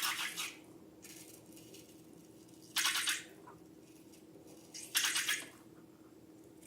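Three short, rustling bursts of slime and balloon handling noise, near the start, a little before 3 s and about 5 s in, over a faint steady hum.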